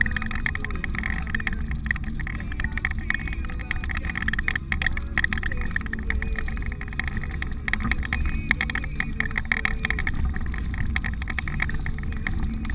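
Inside the cab of a 4x4 driving slowly along a rough dirt trail: a steady low engine and tyre rumble, with constant light rattling and clicking from the bumpy ground.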